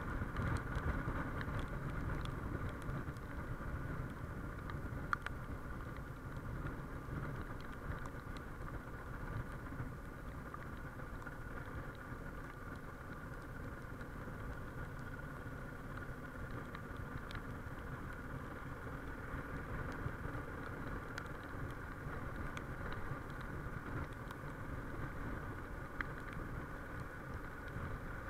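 Suzuki XF650 Freewind's single-cylinder engine running at a steady cruise of about 45–55 km/h, mixed with wind and road noise on a chest-mounted action camera's built-in microphone. It is a little quieter in the middle as the speed eases off.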